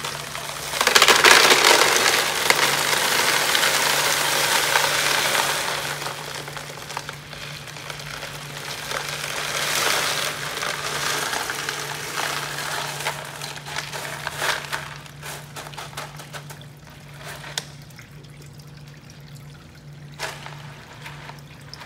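Expanded clay pebbles (hydroton) poured from a plastic tub into a plastic grow bin: a dense rattling rush of pebbles on plastic, with a second pour about ten seconds in. Near the end, scattered clicks as the pebbles are shifted by hand.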